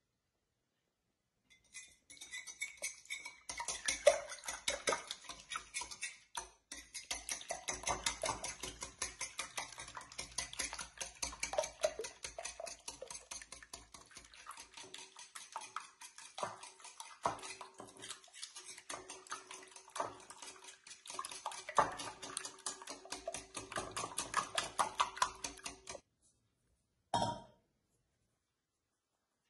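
Wire whisk beating eggs in a glass bowl: a fast, steady run of clinking as the wires strike the glass, starting a couple of seconds in and stopping a few seconds before the end, followed by one brief knock.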